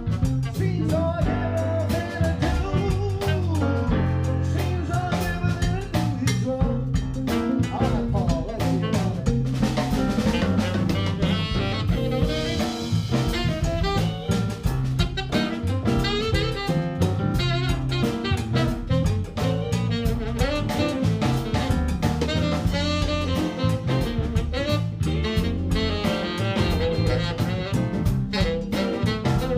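A band jamming a blues number, a drum kit keeping a steady beat under bass and melody instruments.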